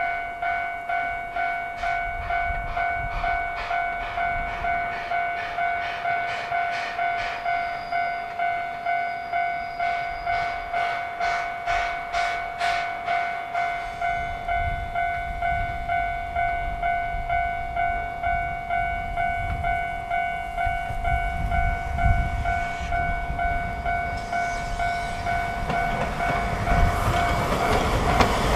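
Railway level-crossing alarm ringing, a steady electronic bell tone pulsing in an even rhythm, with a train's noise growing louder near the end as the alarm stops.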